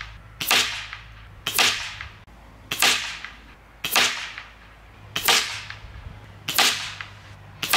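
A series of sharp cracks, about one a second and seven in all: .22 Weihrauch HW97K spring air rifle shots fired at the paper target, the group closing to one hole.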